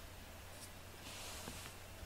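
Quiet room tone with a steady low hum, and a brief soft rustle about a second in.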